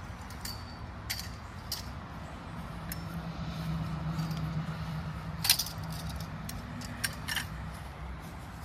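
Tent poles and frame fittings clinking and clattering as a large tent frame is assembled, a scatter of sharp metallic clicks with the loudest about halfway through, over a low steady hum.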